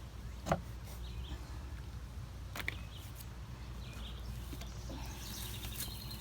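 Outdoor background with faint bird chirps over a steady low rumble, and two light knocks, one about half a second in and one a little after two and a half seconds.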